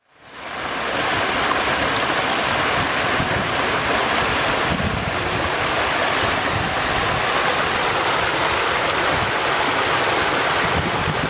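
Muddy flash-flood water rushing steadily as it pours in a wide sheet over a low ledge and churns over rocks below; the sound fades in over the first half second.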